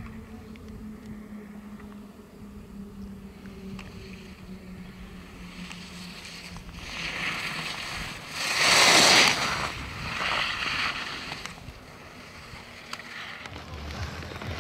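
Skis carving and scraping on hard-packed snow as a skier passes close to the microphone: a hiss that swells, is loudest about nine seconds in, then fades with a smaller second swish. Before it, a low steady hum.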